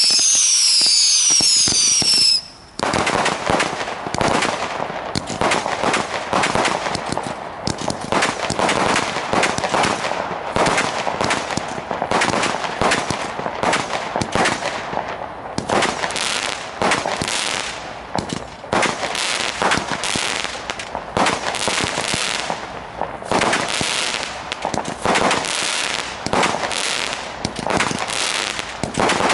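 Weco Firefighter firework going off: shrill falling whistles for about two seconds at the start, then dense crackling with many sharp cracks as its shots burst into crackling stars.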